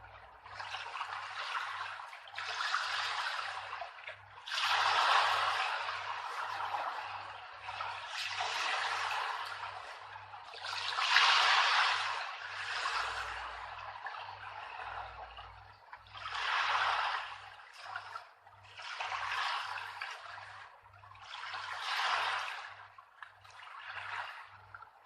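Rushing water noise that swells and fades every two or three seconds, with a faint low pulse repeating underneath.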